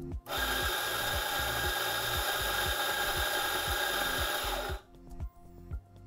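Fiorenzato F64XGI espresso grinder's motor and 64 mm flat burrs grinding a double dose of coffee by weight into the portafilter: a steady grinding whir that starts just after the start and cuts off sharply about five seconds in, once the target weight is reached.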